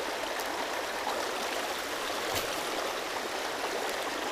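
Shallow creek water running over rocks in a riffle: a steady rushing, with a faint click about two and a half seconds in.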